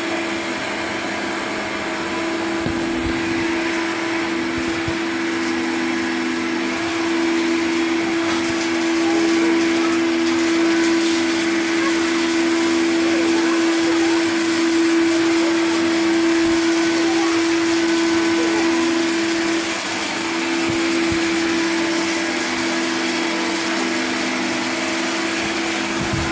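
Vacuum cleaner running steadily, a continuous motor hum and whine with a steady pitch and airflow noise.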